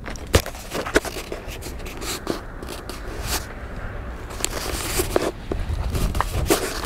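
Handling noise: scattered clicks, scrapes and rustles of a handheld camera knocking and rubbing against clothing.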